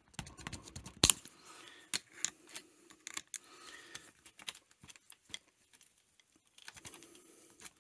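Pliers clicking and scraping on metal as a valve stem seal is wiggled and pulled off the valve guide of a Yamaha SR125 cylinder head, with irregular small clicks and one sharp click about a second in.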